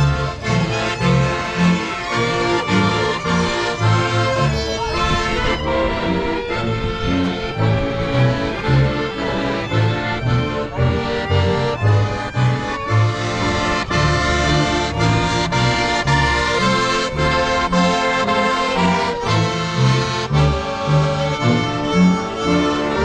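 Accordion-led folk music with a regular pulsing bass line, playing steadily.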